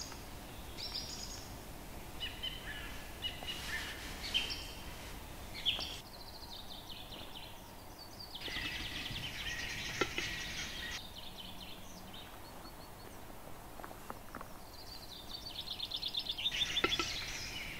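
Forest birds singing in short chattering and trilling phrases, with quiet gaps between them, over a faint steady hiss. A single sharp click comes about ten seconds in.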